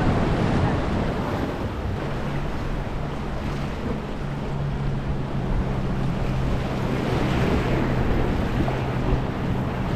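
Wind on the microphone over washing surf, with a low steady engine hum, a passing boat, from about a second and a half in until about seven and a half seconds in.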